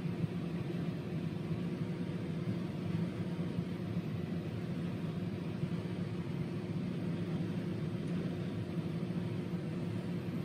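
Combine harvester running steadily while harvesting corn, heard from inside the cab: an even low drone with a steady hum.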